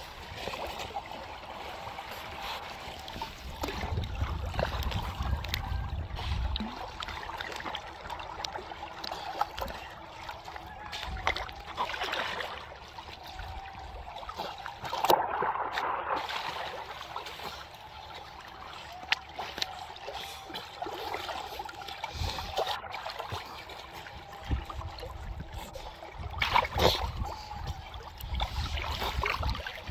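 Water lapping and splashing right at the surface, with several seals swimming and splashing close by; louder splashes come about halfway through and again near the end.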